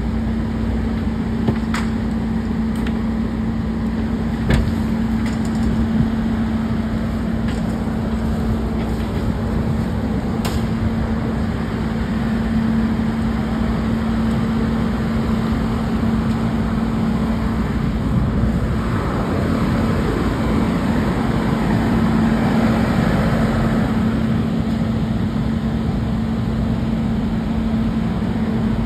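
Fire engine's diesel engine running steadily with a constant drone, with a few sharp knocks in the first ten seconds.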